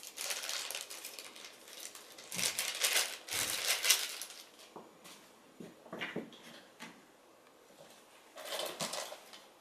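Clear plastic bag crinkling in several bursts as a USB cable is pulled out of it, loudest about two to four seconds in, then a short rustle near the end as the box is handled.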